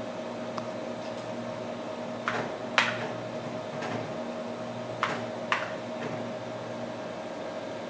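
Steady machine hum of the running Xerox Alto computer and its Diablo disk drive. Four short sharp clicks come in two pairs, about two seconds in and about five seconds in, as the computer's keys and mouse buttons are worked.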